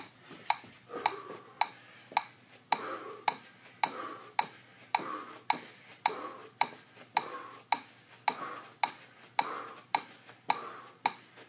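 Metronome ticking steadily at a little under two beats a second, pacing a workout, with softer noise between the ticks.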